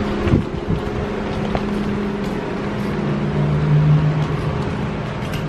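Low steady mechanical hum, swelling for about a second from three seconds in, with a few light knocks near the start.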